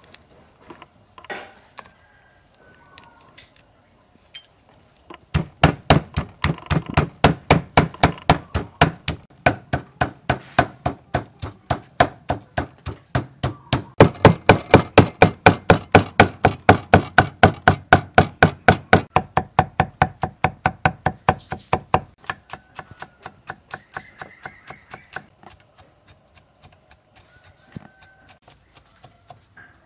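Cleaver rapidly chopping raw fish flesh into a mince on a thick wooden chopping block, an even run of about four to five strokes a second that starts about five seconds in and lasts some seventeen seconds. After that come lighter, sparser knife strokes.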